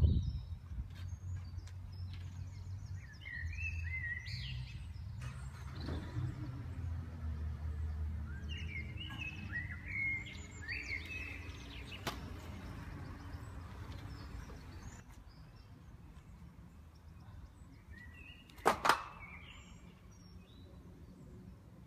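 Outdoor ambience: small birds chirping in short bouts, over a low steady rumble with a faint hum that slowly falls in pitch. About 19 seconds in come two sharp knocks close together, the loudest sound.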